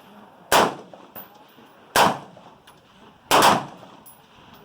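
Three rifle shots about a second and a half apart from an AR-15-style rifle with a Wolf A1 upper, each a sharp crack with a short ring after it.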